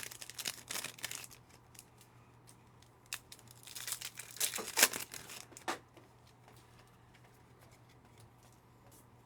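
Plastic wrapper of a trading card pack being torn open and crinkled by hand, in two short spells: one at the very start and one about four to six seconds in.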